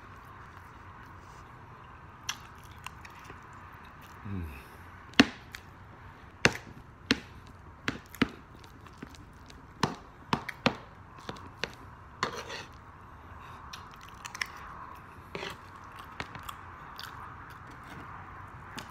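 Close-miked eating of rice and red kidney beans off a spoon: irregular sharp clicks and smacks of chewing and spoon handling, over a steady background hiss.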